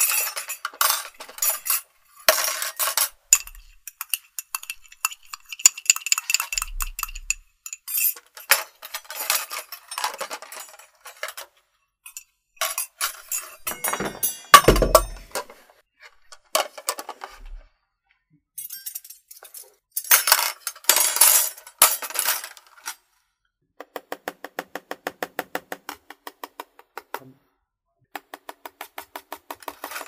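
Kitchen dishes, cutlery and glassware clinking and clattering in a string of separate short bursts with brief pauses between them. In the last third comes a quick, even run of light ticks, about seven a second, lasting a few seconds.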